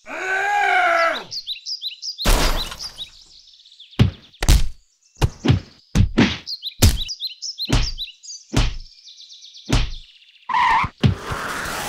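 Cartoon fight sound effects: a short cry at the start, then about a dozen thuds and whacks in an irregular string. High bird chirps sound faintly between the blows.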